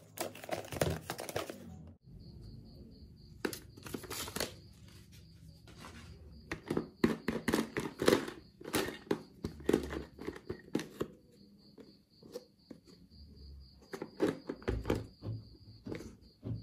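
Hands handling a plastic Hello Kitty–shaped toy play-set case: at first a cardboard sleeve rubs and crinkles as it slides off, then come irregular plastic taps, knocks and clicks as fingers work over the case and its latch.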